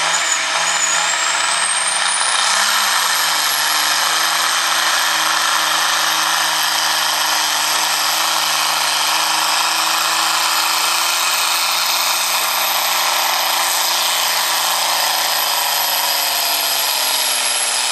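John Deere farm tractor's diesel engine at full load pulling a weight-transfer sled, with a high turbo whistle that climbs over the first couple of seconds and then holds. The engine's pitch sags over the last few seconds as it lugs down under the growing weight of the sled.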